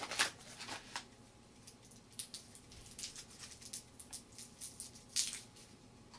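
Irregular soft crinkles and small clicks, a few a second, from a cough drop being unwrapped and put in the mouth.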